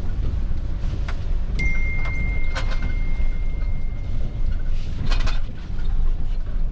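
Low rumble of a truck's engine and road noise heard from inside the cab, with scattered clicks and knocks. A thin, steady high tone sounds for about three seconds, starting between one and two seconds in.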